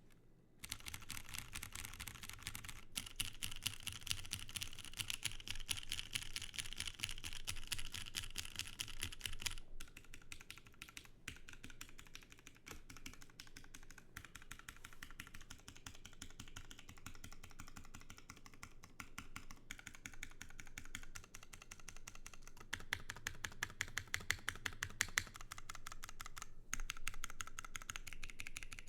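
Typing on a top-mount custom mechanical keyboard with lubed, filmed Cherry MX2A Clear tactile switches in an aluminium plate, under GMK doubleshot ABS keycaps. The keystrokes come in fast continuous runs with a few brief pauses, starting about half a second in.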